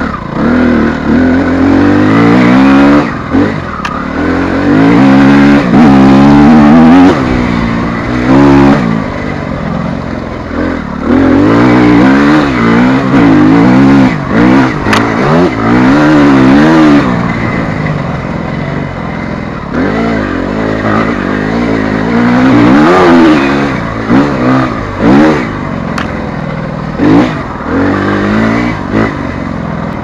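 TM Racing EN 250 F enduro motorcycle's single-cylinder four-stroke engine being ridden hard, its pitch rising and dropping again and again as the throttle is opened and closed, with about a dozen loud surges.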